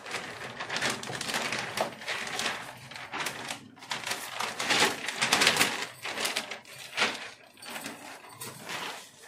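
Crackling and rustling of a self-adhesive vinyl sheet and its paper backing as they are peeled, handled and smoothed down onto a countertop by hand, loudest about halfway through.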